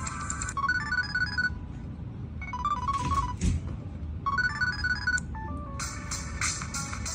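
Built-in ringtones of an LG Marquee phone playing: one tone ends, a short melody of quick high beeping notes plays three times, and a fuller ringtone starts near the end. A brief knock sounds about halfway through.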